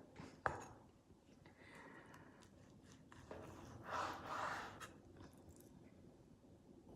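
A knife slicing through raw chicken breast on a cutting board, with quiet wet, squishy handling sounds and a sharp click about half a second in.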